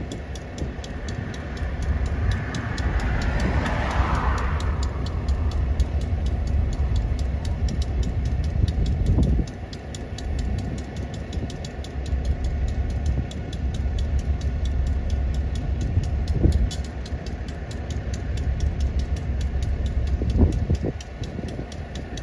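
Diesel locomotive engine running with a steady low rumble, with a brief rushing noise a few seconds in.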